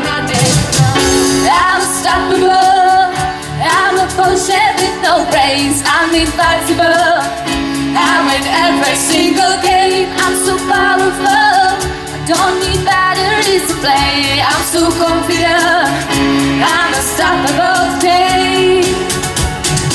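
Live pop song: a woman singing into a microphone over held chords from a Yamaha PSR-S770 arranger keyboard. It plays without a break.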